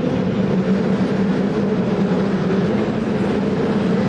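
San Francisco tram running along its rails with a steady drone and rail noise.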